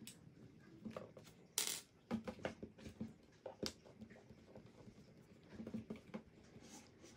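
Scattered light clicks and taps of a screwdriver and hard plastic chassis parts as screws are backed out of the shock mounts on a Tamiya TL01 radio-control car, with a brief louder rustle about one and a half seconds in.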